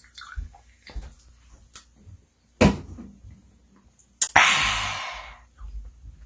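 Drinking soda from a bottle: a few soft knocks and gulps, then a louder knock. About four seconds in comes a sharp click and a loud breathy hiss that fades over a second and a half.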